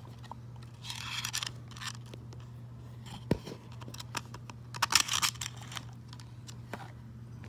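Hard plastic prop parts being handled and fitted together: scattered clicks and scrapes, two short rustling scrapes about a second in and about five seconds in, and a sharp knock a little after three seconds. A steady low hum runs underneath.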